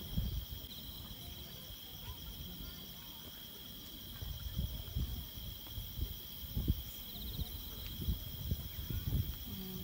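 Insects chirring steadily on a summer night, with low muffled thumps of distant fireworks shells bursting, the sharpest about two-thirds of the way through and again near the end.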